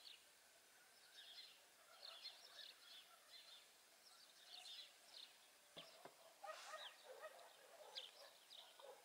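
Faint, scattered bird calls, many short chirps, over near silence, with two soft clicks about six seconds in.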